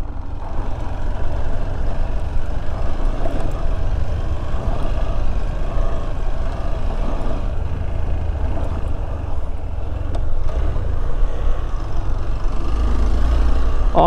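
Hero Xpulse 200T's single-cylinder engine running as the motorcycle rides over a broken, off-road stretch of road, with a steady low rumble that swells near the end.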